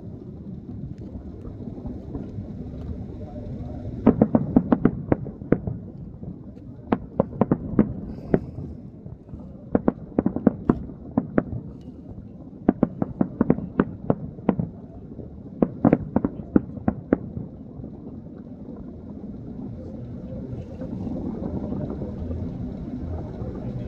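Distant explosive blasts going off in rapid clusters of sharp cracks, several volleys a second or two apart. A steady low rumble grows louder near the end.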